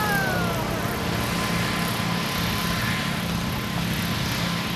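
Small riding-lawnmower engines running steadily as garden tractors race past on the grass track. A brief high call falls in pitch at the very start.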